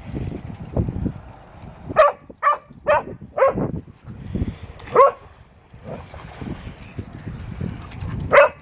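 A dog barking: four quick barks about two seconds in, a single bark a little later, and one more near the end, over a low rumbling noise.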